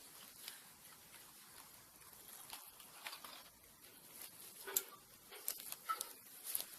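Fluffy slime being handled: faint, irregular sticky clicks and small pops, with a few louder ones in the second half.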